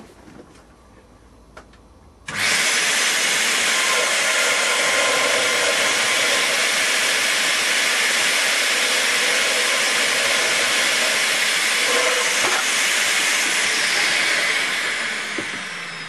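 Vacuum cleaner switched on about two seconds in and running with a loud, steady rush of air, its hose nozzle sucking on the inlet pipe of a homemade model beam engine cylinder to draw the piston down and lift a weighted beam. Near the end it is switched off and winds down with a falling whine.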